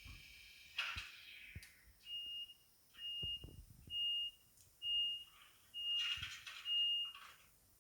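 Zimo sound decoder in a Kato N-scale ET425 model playing a short falling hiss, then six short high-pitched beeps about one a second, with hissing between them.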